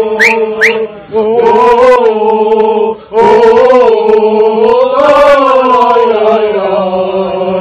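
Group of men chanting a Turkish football terrace song in unison on a wordless 'la la la' chorus, long held notes that swell and dip in pitch. There are short breaks about one second and three seconds in, and three quick rising whistle-like notes right at the start.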